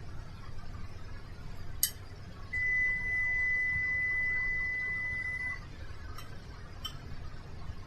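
A single long, steady, high electronic beep lasting about three seconds, with a sharp click about a second before it.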